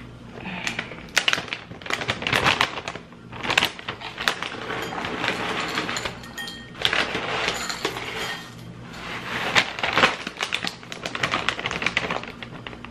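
Hard keto cereal clusters being broken up by hand and dropped into a bowl: a busy run of cracking, clicking and rustling, with a couple of short pauses.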